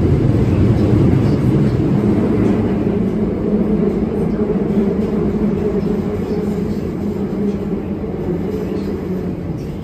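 Osaka Metro 22 series subway train running in the tunnel, heard inside the car: a steady rumble with a low electric hum. The noise gradually dies down as the train slows for the next station.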